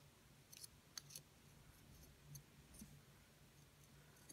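Near silence with a few faint, scattered clicks of a metal pick against the small plastic and metal parts of an RC car gear differential as the cross pin is worked out, over a faint steady low hum.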